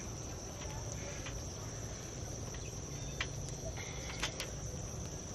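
A steady high-pitched chirring, with a few faint clicks scattered through it.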